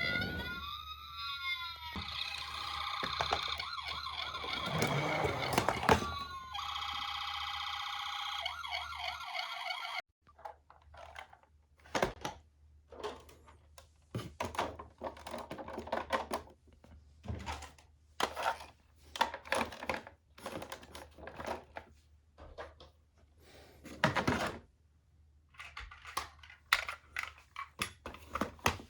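Toy ambulance minicars' electronic sirens: a rising-and-falling wail, then steady siren tones, cutting off suddenly about ten seconds in. After that, scattered clicks and knocks.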